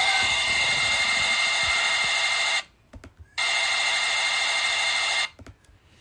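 A steady whirring sound that cuts off suddenly about two and a half seconds in, starts again almost a second later, and stops again a little after five seconds, followed by a few faint clicks.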